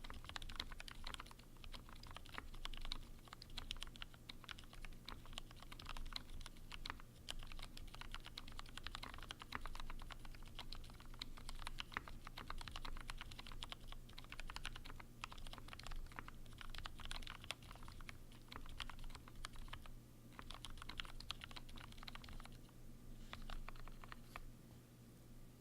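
Typing on an E6-V2 mechanical keyboard with C³ Tangerine linear switches, lubed with 205g0 and fitted with 68 g springs: a steady stream of keystrokes, thinning to a few scattered presses near the end.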